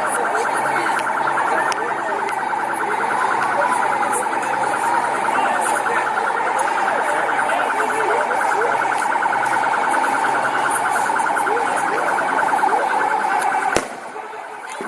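Police siren sounding continuously with a fast warble, then cutting off abruptly near the end with a sharp click.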